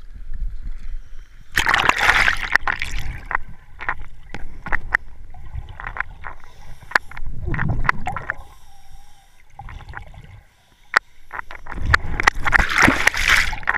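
Water sloshing and gurgling around a camera dipped under the surface, heard muffled through the waterproof housing. A burst of splashing comes about a second and a half in and another near the end, with scattered sharp clicks and knocks between.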